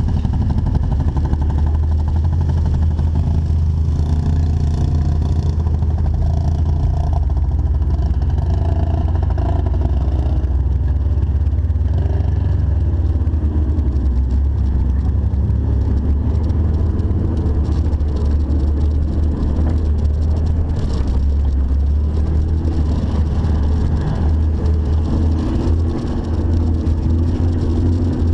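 Jeep engine running steadily at low revs while off-roading: a deep, even drone.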